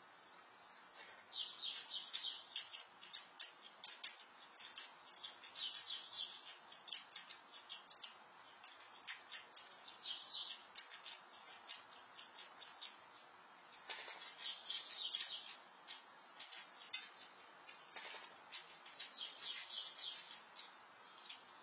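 A songbird singing: five short, high, chirpy phrases, one about every four to five seconds, with faint clicks in between.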